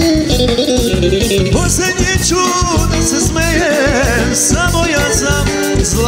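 Live band music with a man singing into a microphone: a wavering, ornamented melody over a steady bass beat.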